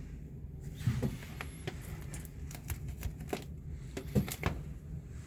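Irregular light clicks, taps and rustles of something being handled, with the loudest knocks about a second in and again about four seconds in.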